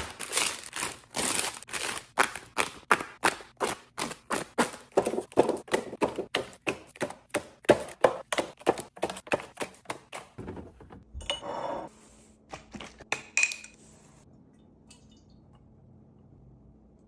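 Small items tapped and clinked down one after another in quick succession, about three or four knocks a second, as groceries are restocked. A short rustle and a few last knocks follow near the end, then it falls quiet.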